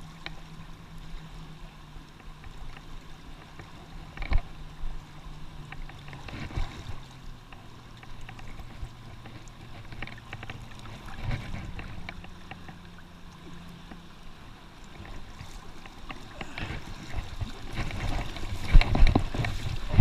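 River water splashing and sloshing around a landing net held in the current, with a low steady hum underneath. A few sharp splashes come in the middle, and louder, choppier splashing comes near the end.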